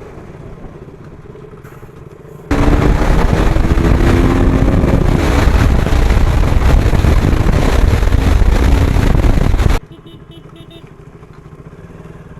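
Motorcycle engine running, then for about seven seconds a loud rushing wind noise on the action camera's built-in microphone drowns it out, starting and stopping abruptly.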